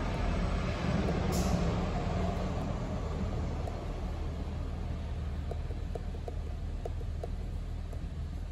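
Car engine idling with a steady low hum, plausibly the Cadillac XT5's 3.6-litre V6. A few faint light ticks come in about halfway through.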